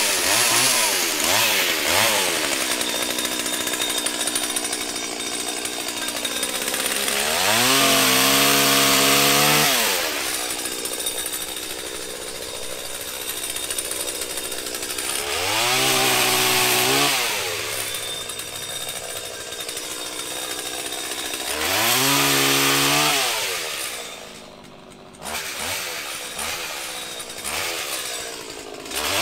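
Pole saw running as it cuts small low-hanging tree limbs. The motor speeds up to full pitch and eases back down three times, with a short lull near the end.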